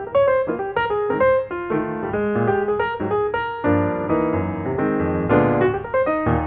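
Background music: piano playing a quick melody over chords.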